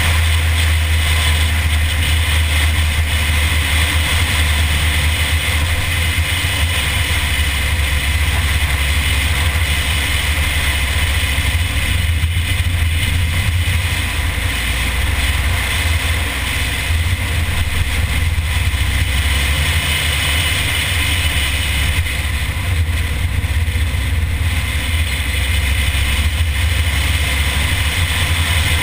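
A Mini's engine running at a steady pace while driving, mixed with a constant low rumble of wind and road noise on the onboard camera's microphone.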